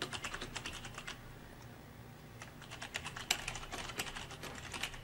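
Typing on a computer keyboard: two quick runs of keystrokes with a pause of about a second between them, as a short note is typed in.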